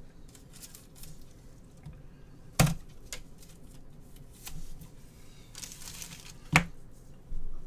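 Trading cards and their packaging being handled on a table: soft rustling and small ticks, a brief crinkle, and two sharp taps about four seconds apart.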